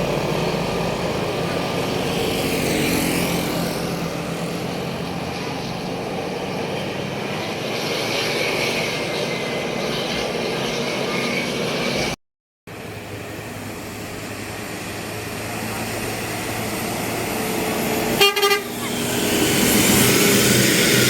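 Tour buses and other traffic passing on the road, with a short rapid burst of horn toots about three-quarters of the way through, after which the sound grows louder as a vehicle draws close. The sound cuts out for a moment about halfway.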